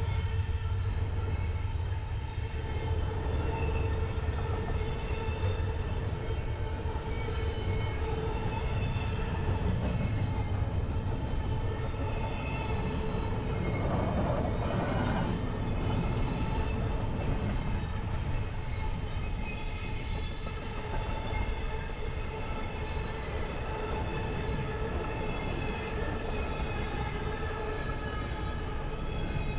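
Double-stack intermodal freight train's container well cars rolling past on the rails, a continuous low rumble of wheels on track. Steady high ringing tones run over it, and a brief swell of noise comes about halfway through.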